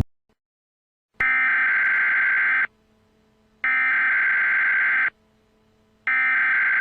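An electronic tone sounds three times: identical long beeps of about a second and a half each, with about a second's pause between them.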